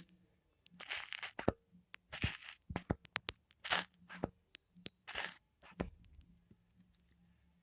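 Foam being squeezed and rubbed close to the microphone: a run of short crunchy, crinkly bursts about once a second, with sharp little clicks between them, dying down near the end.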